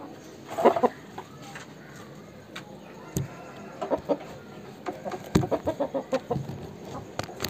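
Aseel rooster clucking: one loud call about half a second in, then a run of short clucks in the middle, with a few sharp clicks between them.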